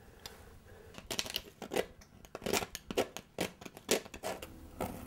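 Metal palette knife scraping and dabbing thick paint on a canvas: a quick, irregular run of short scrapes starting about a second in.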